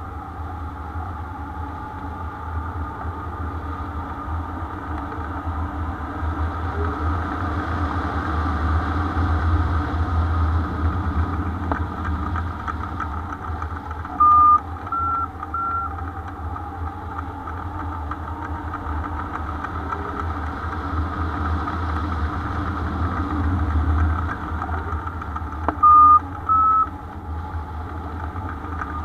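Wind rushing over the microphone of a hang glider in flight, a steady rumble with a wavering whine. Three short electronic beeps stepping up in pitch come about halfway through, and two more near the end.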